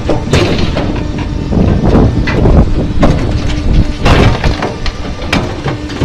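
Firewood processor working a large log: a steady machine hum under repeated loud wooden knocks and clatter as the log and cut rounds shift.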